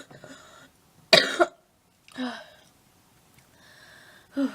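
A sick person coughing harshly: a loud double cough about a second in, a weaker cough about a second later, and another short one near the end. It is the chesty cough of someone ill and badly out of breath.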